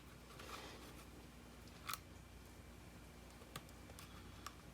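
A few faint, sharp clicks and taps of small parts being handled, the clearest about two seconds in, over a quiet steady room hum.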